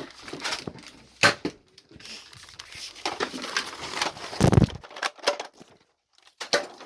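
Nerf blaster firing foam darts: a few sharp clacks, with rustling between them and one louder dull thump about four and a half seconds in.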